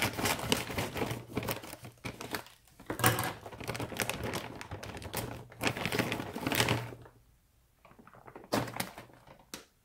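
Scissors snipping open a plastic tortilla-chip bag, with a dense run of snips and crinkling for about seven seconds, then a few lighter clicks and rustles near the end.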